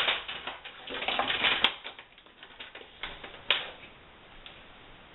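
A metal saucepan and an electric coil stove being handled: a quick run of clicks and metallic rattles, then two sharper knocks about three and three and a half seconds in.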